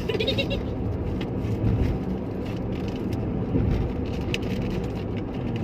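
Steady low rumble of a moving car, heard from inside the cabin, with a few faint clicks over it.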